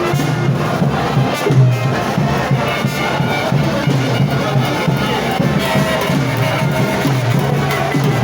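Frevo music playing loudly, with a crowd shouting and cheering along.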